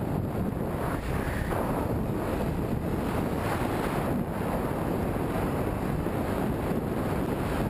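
Steady wind rushing over a helmet-mounted camera's microphone while riding a dirt bike.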